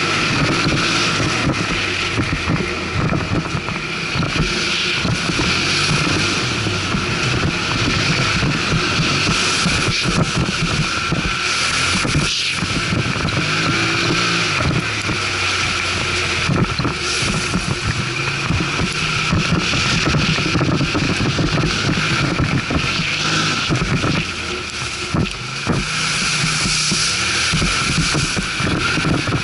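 ATV engine running under way, its note shifting up and down, with wind buffeting the microphone.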